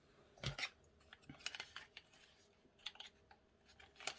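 Faint, scattered clicks and light crinkling of small cosmetic packaging handled in the fingers, with a soft knock about half a second in.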